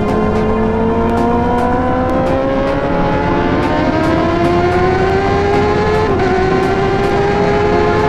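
Honda CBR1000RR-R SP's inline-four engine accelerating hard under full load, its pitch climbing steadily, with a slight dip about six seconds in before it climbs again.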